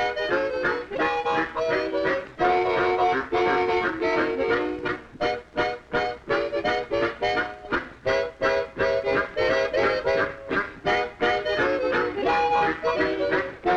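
Harmonica ensemble playing an up-tempo instrumental in short, rhythmic chords, with no singing.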